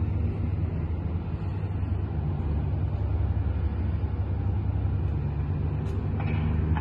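Steady low rumble of ship engines and machinery, an even drone with a deep hum and no change in pace. A brief higher sound comes in about six seconds in.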